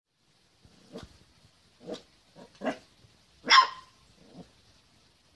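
Puppy barking: about six short barks with pauses between them, the loudest about three and a half seconds in.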